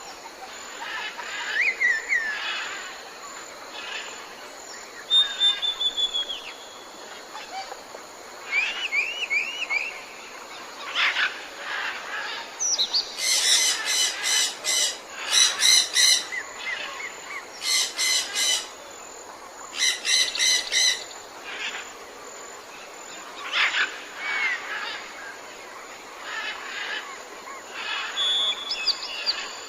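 Several wild birds calling and singing: scattered chirps and short whistled glides, broken in the middle by four loud bursts of rapid, harsh repeated notes.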